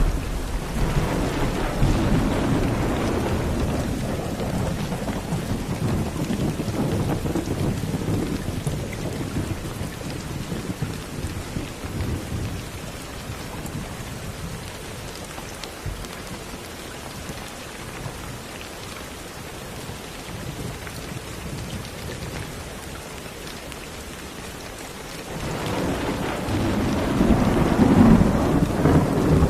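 Steady rain with rolling thunder: a long rumble fades away over the first ten seconds or so, and the rain carries on alone until a second rumble swells up near the end.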